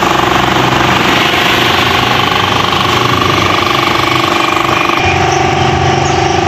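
Loud, steady machine noise with a rattling buzz and a few held tones; it changes abruptly about five seconds in.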